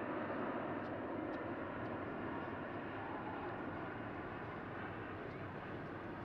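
Jet noise from an RF-4E Phantom II's twin General Electric J79 turbojets in flight: a steady, distant rumble that slowly fades.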